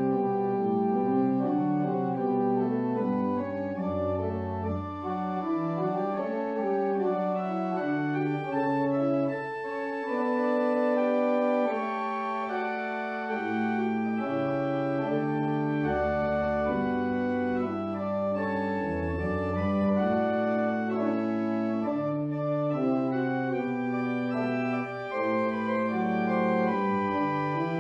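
Organ music playing after the benediction as the service's postlude: slow, sustained chords over a moving bass line.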